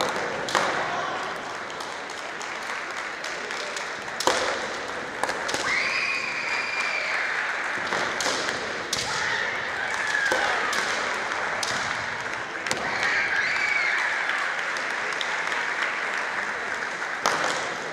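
Kendo practice sounds: sharp clacks of bamboo shinai striking and thuds of feet stamping on a wooden floor, scattered throughout. Three long, high-pitched kiai shouts from fencers cut through, the middle one falling in pitch at its end.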